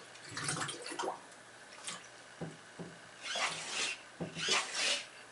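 Water sloshing and dripping in a filled bathtub around a model submarine's hull, in a few short splashy bursts.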